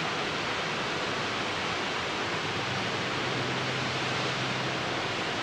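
Wentworth Falls rushing, a steady, even hiss of falling water. A faint low hum joins about three seconds in.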